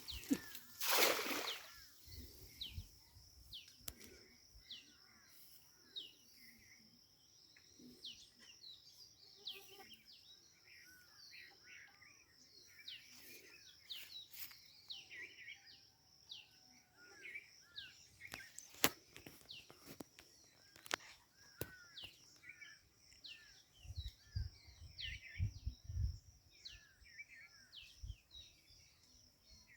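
Outdoor ambience of small birds chirping over and over with short falling calls, over a steady high-pitched whine. A brief loud rushing noise comes about a second in, with a sharp click midway and a few low thuds near the end.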